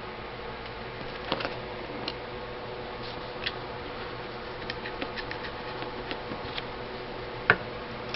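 Scattered clicks and light knocks from AK-47 rifle parts being handled and fitted back together during reassembly, with one sharper knock near the end, over a steady faint hum.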